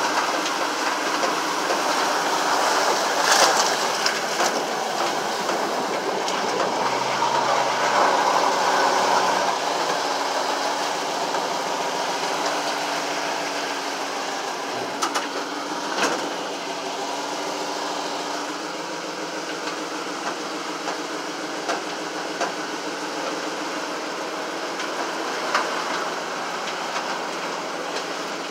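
Small utility vehicle driving through flood water, heard from inside the cab: steady engine and running noise with scattered knocks and rattles from the body.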